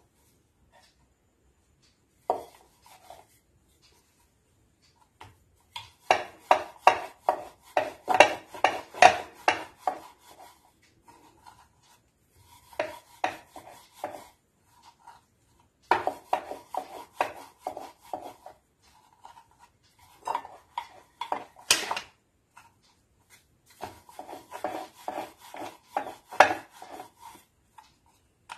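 Wooden rolling pin rolled back and forth over dough on a wooden board: rhythmic rubbing knocks, about three a second, in runs of a few seconds with short pauses, and one sharper click about three-quarters through.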